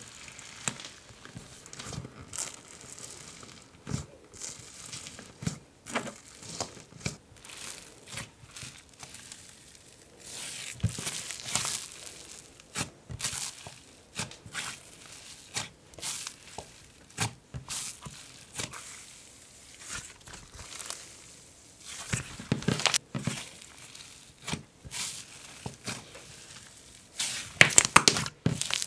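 Hands poking, pressing and folding a wet, rubbery Icee-texture slime, giving a string of irregular small wet clicks and crackles. A louder cluster of pops comes near the end as the slime is squeezed in a fist.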